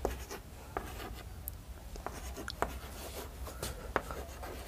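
Chalk writing on a chalkboard: a string of irregular short taps and scrapes as letters are chalked onto the board.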